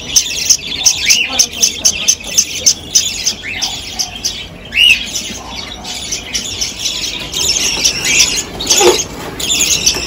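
A group of young budgerigars chirping and squawking continuously, many short high calls a second, with a few louder rising-and-falling calls.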